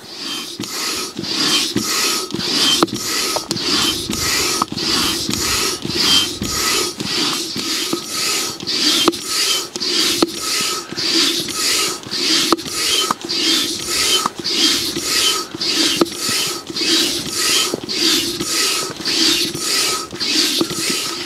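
Hand saw cutting wood in steady back-and-forth rasping strokes, about two a second.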